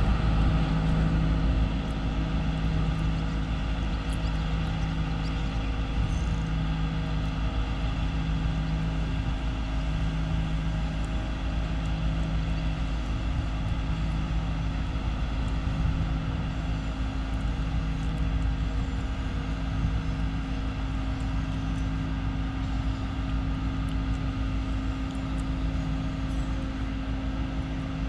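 Marina travel lift's engine running steadily as it lowers a 32-foot cruiser, a constant drone with a low rumble underneath.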